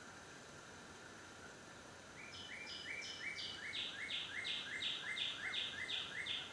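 A songbird singing a fast series of repeated two-part notes, about three a second, starting about two seconds in, growing louder and cutting off abruptly at the end, over a faint steady outdoor background.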